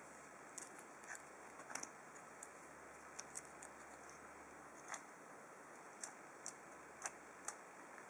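Brass lock cylinder being worked by hand out of a steel padlock body: about a dozen small, irregular metal clicks and ticks over a faint hiss.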